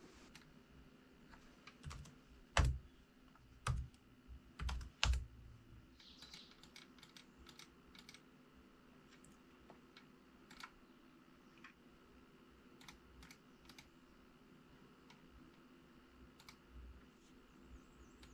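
Laptop keys and mouse buttons clicking in scattered, unhurried strokes while a part is drawn in CAD software, with a few louder knocks in the first five seconds.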